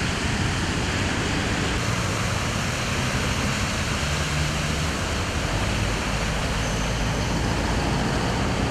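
Road traffic on a flooded street: cars and vans driving through standing water, a steady noise of tyres in water over engine rumble.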